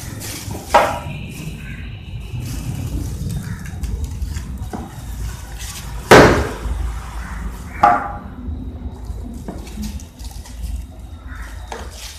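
Unboxing handling noise: polystyrene foam packing pieces and a plastic-wrapped cooktop being pulled apart and moved, rustling and scraping, with sharp knocks about a second in, around six seconds in (the loudest) and near eight seconds, over a low rumble.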